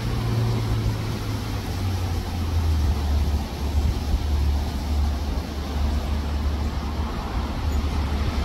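Strong wind buffeting the microphone: a continuous low rumble that swells and fades, over an even hiss of blowing wind.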